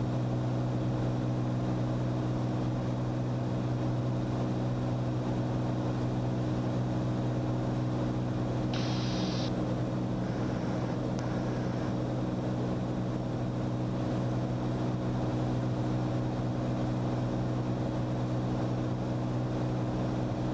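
Steady drone of a Cirrus SR22T's turbocharged six-cylinder engine and propeller in cruise, heard inside the cabin. A brief higher-pitched hiss comes about nine seconds in.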